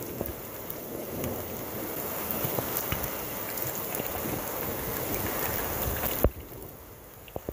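Thunderstorm rain and gusty wind, the wind buffeting the phone's microphone. A sharp knock a little after six seconds in, after which the wind and rain noise drops quieter.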